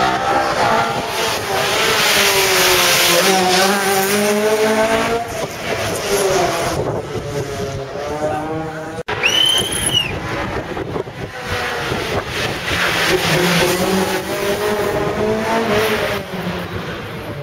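Rally cars driven hard past spectators, their engines revving up and falling back through gear changes, one car and then, after a cut about nine seconds in, another. A short high squeal comes just after the cut.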